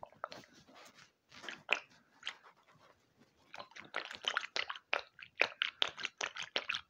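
Crunching, crackling handling noise from hands squeezing and turning soft squishy toys right at the phone's microphone. It comes in scattered strokes at first and turns into a dense, rapid, irregular run in the second half.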